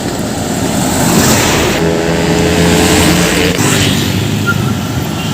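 Heavy truck passing by, engine running with steady road noise. A faint held tone sounds for about a second and a half near the middle.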